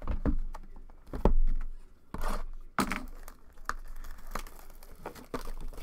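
Plastic trading-card pack wrapper crinkling and rustling in the hands as a pack is taken from the box and worked open, with a thump about a second in.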